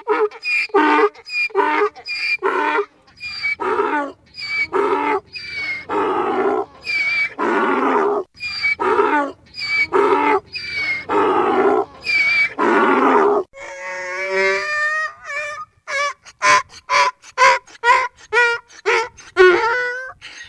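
Donkey braying: a long run of hee-haws, alternating a higher drawn-in note with a lower, harsher out-breath note about once a second. About 13 s in comes a single wavering bray, then a quicker series of shorter hee-haws near the end.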